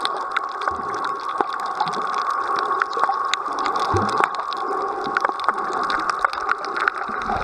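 Underwater sound picked up by a submerged camera: a steady rushing hiss of moving water with many scattered sharp clicks and crackles, and a brief low rumble about four seconds in.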